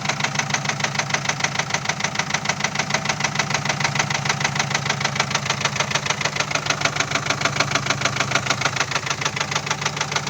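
Truck diesel engine running with a fast, even knock on every beat. The driver suspected a fuel injector, though he was not sure; the engine later turns out to be badly damaged.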